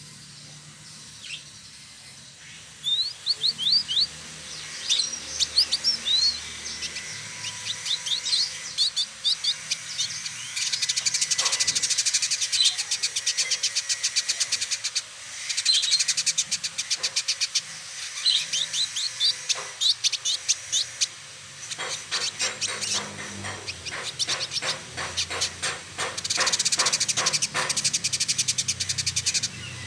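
Male indigo bunting singing. Groups of quick, high, sharp notes and fast trills repeat with short pauses, starting about three seconds in.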